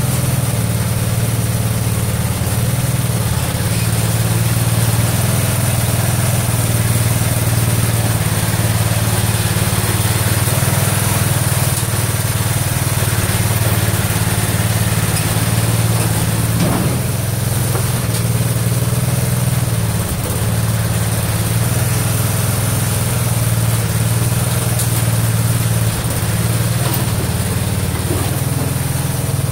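Craftsman garden tractor engine running steadily while the front loader is worked, with slight rises and dips in level.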